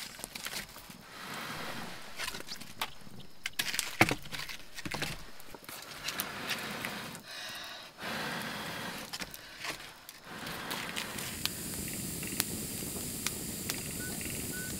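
Wood fire crackling while sticks of firewood are pushed into the embers and knocked together. About ten seconds in it settles into the steady hiss of a blazing fire with sharp pops.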